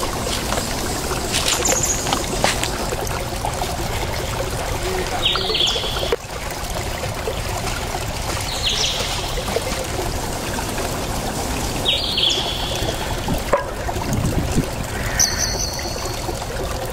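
A steady rushing noise with a bird call heard three times, about three seconds apart, each a short burst that falls in pitch.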